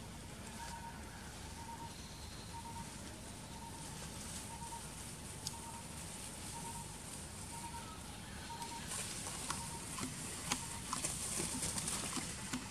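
A bird repeating a short, faint note about twice a second, which stops about three-quarters of the way through. Near the end, dry leaf litter rustles and crackles with sharp twig snaps.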